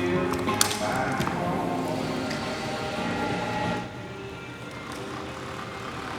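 Background music with held, sustained notes and a few sharp taps in the first second or so. It turns quieter about four seconds in.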